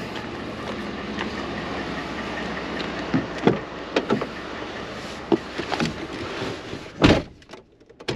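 Pickup truck driver's door (Ford F-150) being climbed through: a few knocks and clicks as someone gets into the seat, then about seven seconds in the door shuts with a heavy thud and the outside noise drops away.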